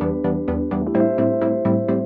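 Background electronic music: synthesizer chords pulsing at about six notes a second, with a change of chord about a second in.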